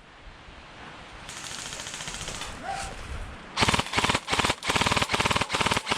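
Airsoft rifles firing on full auto: a faint rapid clatter of distant fire, then from about halfway through several loud, close bursts of rapid shots.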